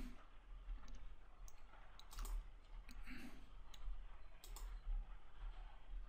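Computer mouse clicking a few times at irregular intervals, some clicks in quick pairs, over a faint low hum.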